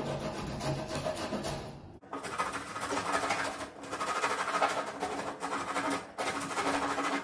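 Nicholson 3/4-inch wood rasp scraping back and forth in rapid strokes inside a bored hole in a wood door, enlarging the hole so the bolt will fit. The strokes come in runs broken by short pauses.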